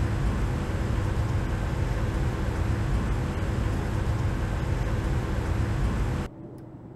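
Steady machine noise with a heavy low rumble and a faint steady hum from a fuel-cell powertrain test bench running. It cuts off suddenly about six seconds in, leaving much quieter room noise.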